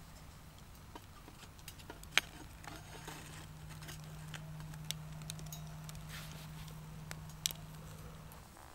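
Wood fire in a small box stove crackling, with scattered sharp pops, the loudest about two seconds in and again near the end. A steady low hum runs underneath and stops shortly before the end.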